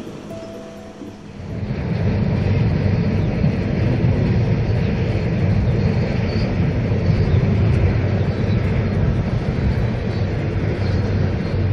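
Wind buffeting the microphone: a loud, rough, gusting rumble that sets in about a second and a half in and keeps fluctuating.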